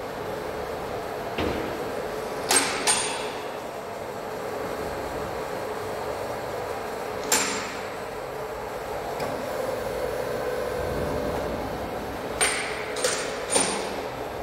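Large WMW Zerbst CNC faceplate lathe running, its big faceplate turning slowly with a steady hum. Sharp metallic clanks ring out twice about two and a half seconds in, once about halfway, and three times near the end.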